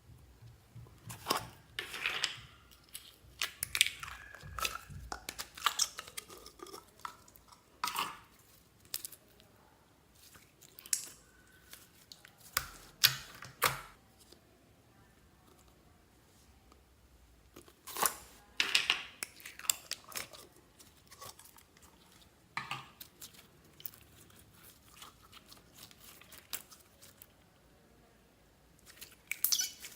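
Slime being handled, stretched and pressed: sticky crackling and clicking, like tearing, in irregular spells with quiet stretches between them.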